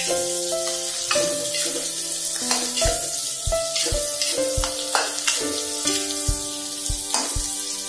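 Sliced onion and red chilies sizzling in hot oil in a wok, stirred with a metal spatula that scrapes and knocks against the pan. Background music with held notes and a steady beat plays along.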